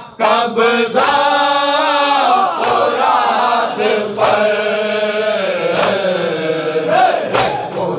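Group of men chanting an Urdu noha (lament) together into a microphone, with a sharp slap about every second and a half from hands beating on chests (matam) in time with the chant.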